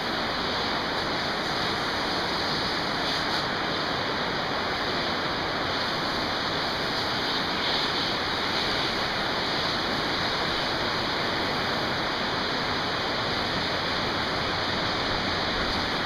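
Steady, even hiss of running or falling water, unbroken and at a constant level.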